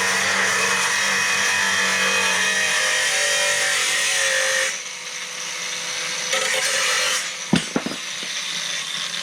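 Angle grinder cutting sheet steel for weld-in repair pieces, running steadily for about four and a half seconds before the cut stops. A shorter run follows about six seconds in, then a few sharp metal knocks.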